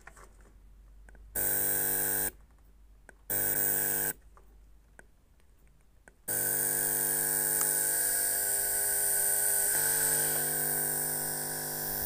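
Steady electronic buzz from a homemade YD1028 amplifier through its speaker, cutting in and out twice as the power clips are touched on, then staying on for the second half. Faint clicks of the clips come first.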